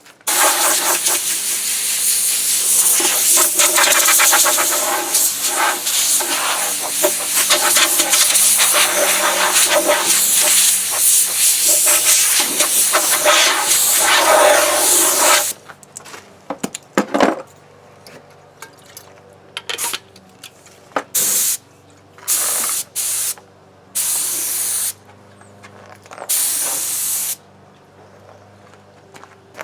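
Spray hissing as a finish is sprayed onto the bowl: one long continuous spray for about the first fifteen seconds, then a string of short separate bursts.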